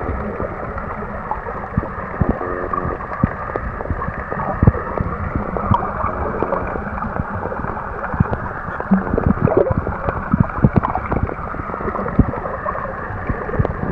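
Muffled water sloshing and gurgling around a camera filming underwater, with irregular knocks and bumps against the housing.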